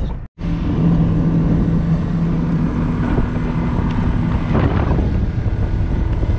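A boat's outboard motor running steadily at an even pitch, with wind rumbling on the microphone.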